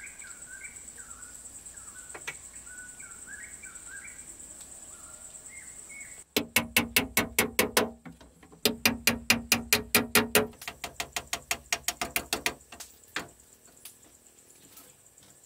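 A steady high insect buzz with birds chirping, then about six seconds in a fast run of hard knocks, about seven a second, from hand work with a tool. After a few seconds the knocks grow softer and sparser, ending in a couple of single knocks.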